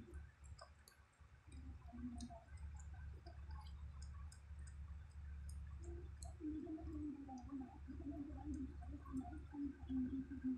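Siamese mother cat licking a newborn kitten clean after its birth: soft wet licking and smacking clicks, with a low wavering hum joining about six seconds in.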